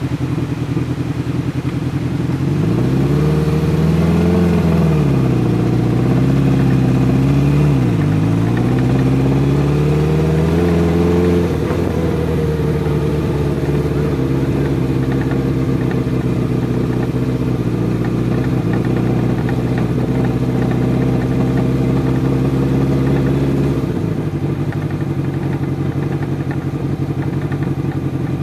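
Motorcycle engine running while riding. Its pitch rises and falls with the throttle for the first ten seconds or so, then holds steady, and it drops to a lower, quieter note near the end.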